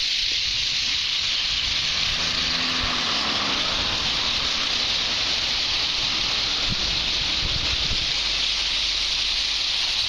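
Massed calling of a huge flock of birds crowded on power lines, so many voices at once that they blend into a dense, steady, hissing chatter.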